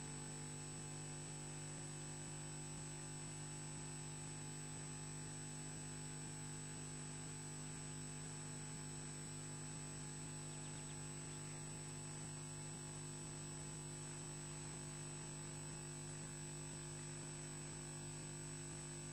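Steady electrical hum from the nest camera's audio feed, several steady tones together with a thin high whine, unchanging throughout.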